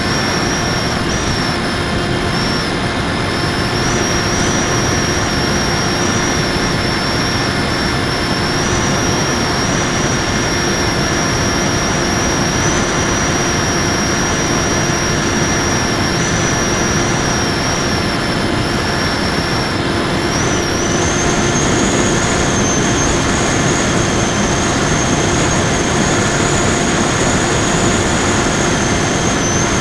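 Raptor FPV model plane's electric motor and propeller, recorded by the onboard action camera: a steady high whine over a rush of wind noise. The whine steps up in pitch and grows slightly louder about two-thirds of the way through.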